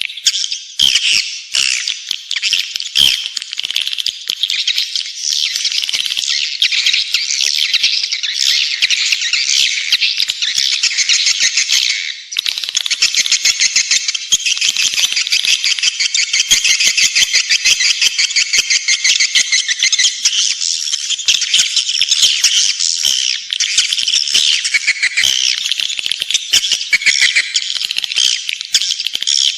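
Swiftlet lure call: dense, continuous twittering of edible-nest swiftlets, rapid high rattling chirps, the kind of recording played to draw swiftlets into a swiftlet house to nest. There is a brief break about twelve seconds in.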